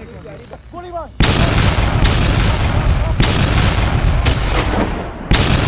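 Heavy gunfire starting about a second in: five booming shots roughly a second apart, with a continuous loud rumble between them.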